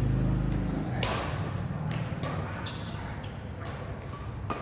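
Badminton rally: sharp racket hits on a shuttlecock, with players' footsteps on the court, echoing in a large hall. One of the loudest hits comes just before the end, as a player jumps for an overhead shot. A low engine-like rumble dies away about a second in.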